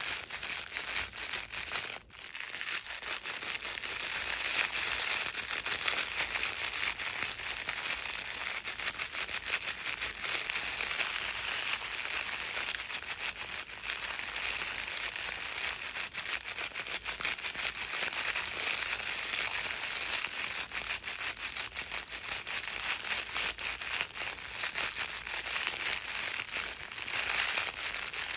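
Crinkle book for babies being rustled and squeezed continuously: a dense, crackly crinkling of plastic film, with a brief break about two seconds in.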